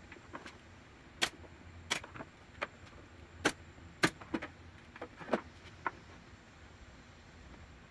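About seven irregular, sharp clacks from a pneumatic nail gun firing nails into thin pallet-wood strips, mixed with lighter knocks of wood and tools set down on the workbench. The loudest clack comes about four seconds in, and the last sounds fade out about two seconds before the end.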